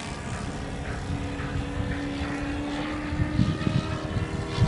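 The OS FS40 four-stroke glow engine of a radio-controlled powered glider droning steadily as it flies high overhead, with low rumbles of wind on the microphone.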